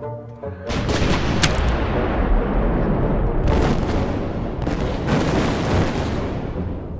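Cartoon cannon-fire and explosion sound effects: the music cuts off as a loud blast starts under a second in, followed by about six seconds of dense booming with several sharp bangs.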